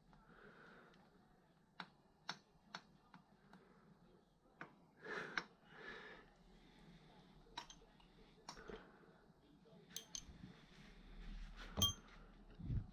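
Scattered clicks and light knocks of hand tools and metal parts being handled, with one louder, ringing metal clink near the end.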